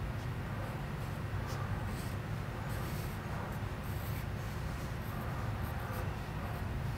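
Pencil scratching across paper in short, intermittent sketching strokes, over a steady low hum of room noise.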